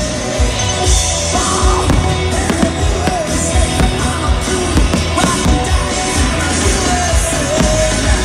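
Loud music with singing, mixed with the bangs and crackle of fireworks bursting overhead.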